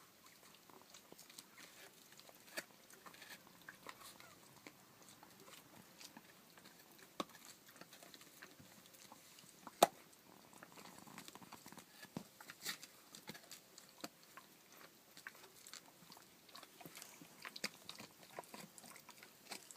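Faint small sounds of young rough collie puppies: scattered soft clicks and little mouth noises, with one sharper click about ten seconds in.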